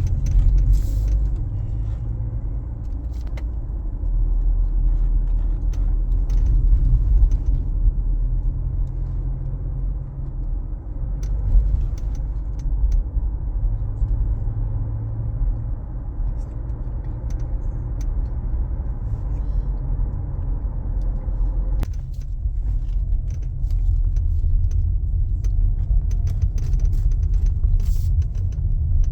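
Mazda CX-5 windshield clicking and rattling in irregular sharp clicks over the steady low road rumble inside the cabin while driving. The clicks come from play between the windshield's plastic alignment pins and the metal frame, opened up by thermal expansion on a hot day, letting the glass vibrate on uneven road.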